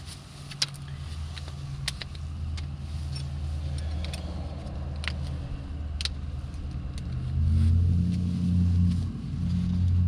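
A low, steady motor hum that grows louder in two spells near the end, with a few short sharp clicks in the first half.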